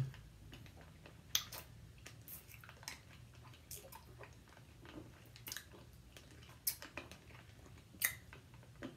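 Faint, scattered wet mouth clicks and lip smacks of people sucking on hard Atomic Fireball candies, over a low steady hum.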